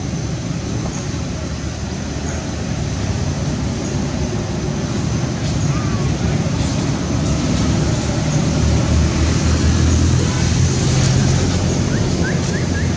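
Steady wind rumble buffeting the microphone, slowly growing louder, with a few faint short high chirps near the end.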